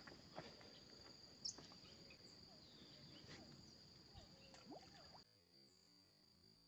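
Near silence: a faint, steady high insect buzz over outdoor quiet, with a few faint rustles. About five seconds in, faint background music comes in.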